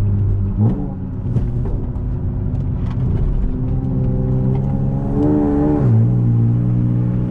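Honda J35 V6 engine and exhaust on a drive. The note jumps briefly just under a second in, then the revs climb steadily under acceleration and fall sharply about six seconds in.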